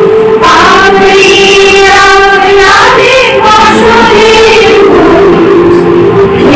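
A group of women singing a song together in unison, accompanied by a harmonium holding steady notes beneath the voices.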